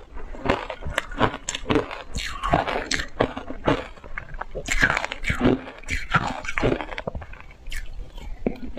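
Shaved ice being crunched and chewed in big mouthfuls, a dense run of quick, crisp crunches.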